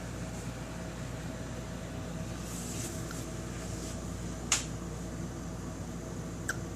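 Shih Tzu puppy hiccuping: two short, sharp hics, a loud one about four and a half seconds in and a fainter one near the end, over a steady background hum.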